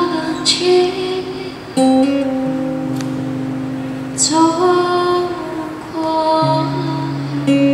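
A woman singing live while playing an acoustic guitar, her voice moving in long held notes over the guitar chords.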